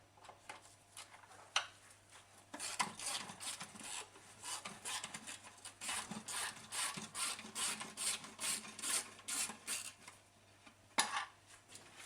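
A run of short rubbing, scraping strokes, a few a second, then one sharp click near the end.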